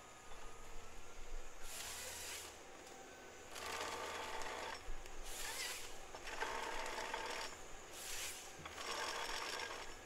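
Timber harvester working felled trees: a run of noisy bursts, each about half a second to a second long and coming every second or so, over the low steady hum of the machine's engine.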